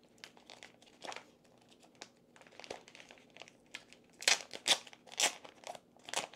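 Packaging crinkling and rustling as it is opened by hand to get at a folded quick start guide, with a run of louder crinkles in the second half.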